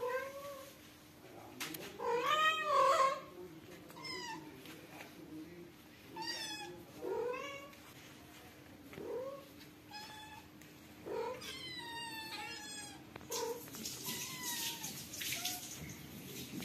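Domestic cats meowing again and again, about a dozen short calls one to two seconds apart. The longest and loudest comes about two seconds in. These are the calls of a mother cat searching for her kitten.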